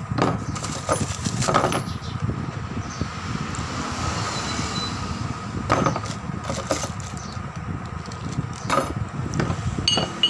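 Heavy steel impact sockets handled and set down in a hard plastic tool case: scattered clacks and knocks, about seven in all, over steady background noise.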